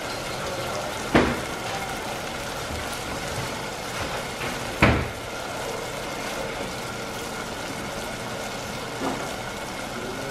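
Steady sizzling hiss of pots cooking on a gas stovetop, with two sharp knocks, about a second in and about five seconds in, and a fainter knock near the end.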